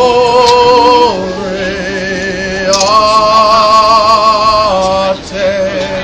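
Voices singing a birthday song in long held notes with a wavering vibrato, changing pitch every second or two.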